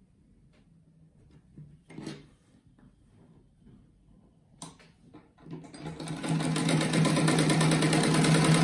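Quiet handling of fabric with a couple of light clicks, then about six seconds in a sewing machine starts and runs at a steady, even speed, stitching a fabric patch and strip onto a patchwork block.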